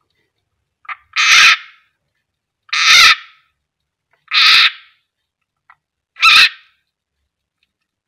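A frog's distress screams as it is held in a snake's jaws: four loud cries, each about half a second long, roughly a second and a half apart.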